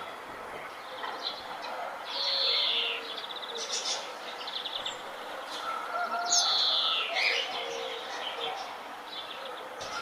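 Several birds calling and singing at once. A loud call that falls in pitch comes twice, about two seconds in and again a little past the middle, over lower, shorter calls and brief trills.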